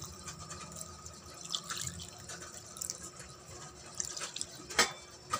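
Second-press coconut milk dripping and splashing from a metal container into a pan of chicken, in scattered small plops, with a sharp metal clink a little before the end.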